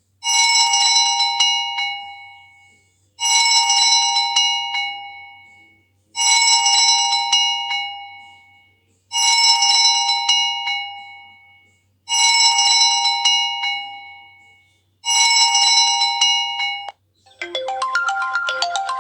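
Optus X Start 2 mobile phone playing a ringtone: a ring of several tones sounding together, repeated six times about every three seconds, each one fading out. About a second before the end a different, busier melodic ringtone begins.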